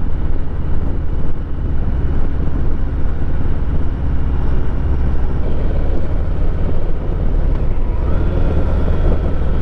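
2023 Harley-Davidson Heritage Classic 114's Milwaukee-Eight 114 V-twin running steadily while riding, with wind rushing over the microphone.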